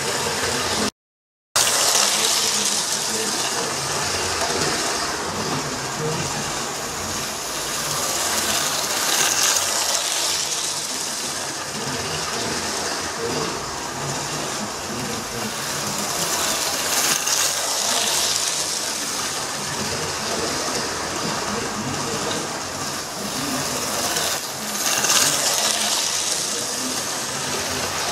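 Electric model train running round the track, a steady whirring rush of motor and wheels on rail that swells each time the train passes close, about every seven or eight seconds.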